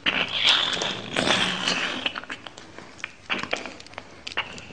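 Hiss with many scattered clicks and crackles, swelling twice in the first two seconds.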